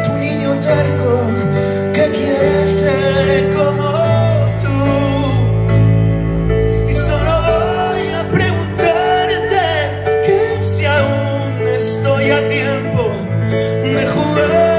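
A man singing a song live into a microphone, accompanied by a keyboard holding sustained low chords.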